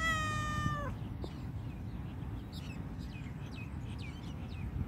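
A white cat gives one drawn-out meow, lasting just under a second, at the start. Short high chirps follow a couple of seconds later.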